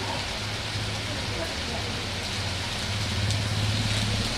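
Heavy rain falling steadily, an even hiss of drops, with a low steady hum that grows louder about three seconds in.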